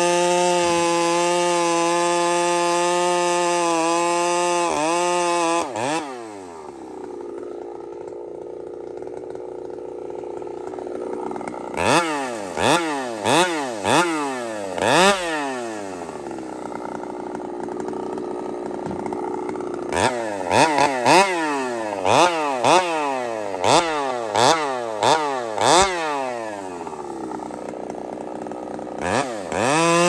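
Gas chainsaw running at full throttle while cutting through a log, then dropping to idle about six seconds in. While idling the throttle is blipped in short quick revs, a handful around the middle and a longer string later, before the saw opens up again near the end.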